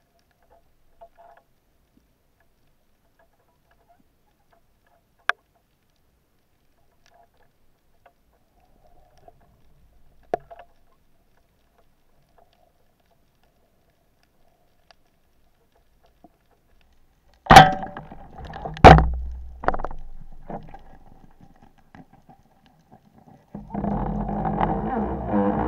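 Underwater recording from a speargun-mounted camera: near silence with a few faint clicks, then two loud sharp knocks about a second and a half apart, followed by a rumbling, scraping noise of movement. Music with a low drone comes in near the end.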